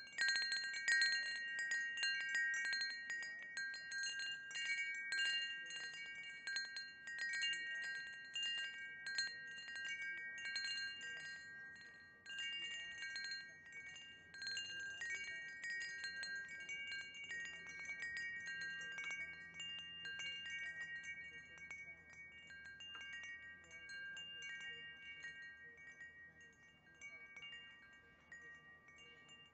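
Wind chimes ringing, struck over and over so that several clear high notes overlap. The strikes come thick at first, then thin out and get quieter over the second half.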